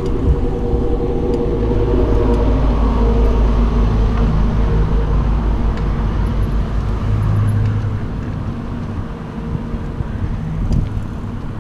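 Road traffic and wind heard from a moving bicycle: a motor vehicle's engine hum that falls slightly in pitch and fades over the first few seconds, over a low rumble that eases off about eight seconds in.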